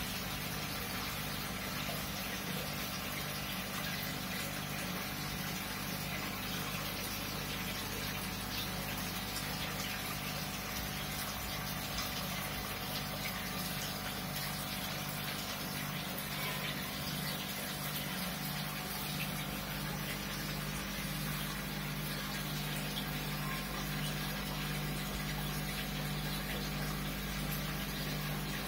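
Large home aquarium's filter and aeration running: a steady rush of bubbling water over a low, steady pump hum.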